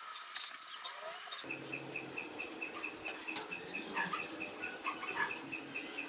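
Rapid high-pitched chirping, repeated evenly about five times a second, that begins about a second and a half in, with scattered light clicks.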